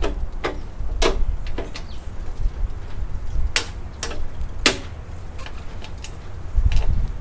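Bumper impact strip being handled and pressed into place on a car bumper: a scattered series of sharp clicks and light knocks at uneven intervals, the loudest near the middle, over a low rumble.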